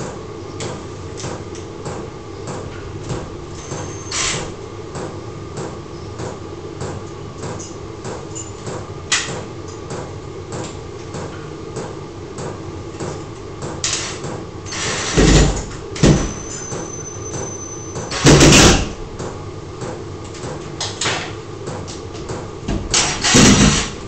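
Cordless drill-driver run in short bursts, driving screws out of and back into a wooden ceiling beam. There are three main bursts in the second half, with small clicks and knocks between them over a steady background hum.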